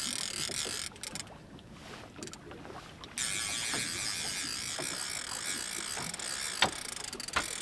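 Boat's outboard motor running steadily at trolling speed, a high buzz that drops away for about two seconds around a second in. Light ticks run through it, with two sharper ticks near the end.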